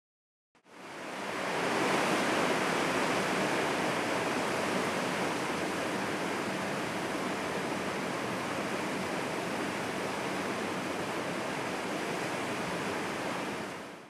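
Mountain creek rushing steadily over boulders, back at its normal level after a storm spate has gone down. It fades in during the first second or two and fades out at the very end.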